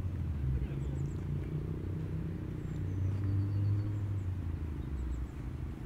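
A car engine running with a low, steady hum that shifts slowly in pitch.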